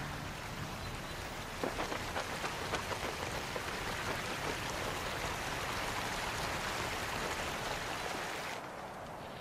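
Steady hiss of rushing, splashing water, with a patter of sharp little splashes from about one and a half seconds in. The hiss drops off suddenly near the end.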